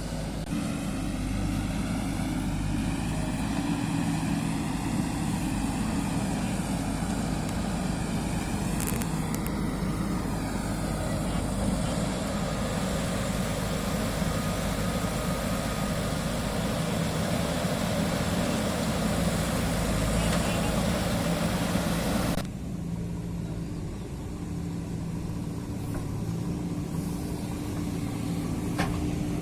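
JCB 3DX backhoe loader's diesel engine running steadily. A broad rushing noise over it cuts off suddenly about three-quarters of the way through, leaving the engine alone.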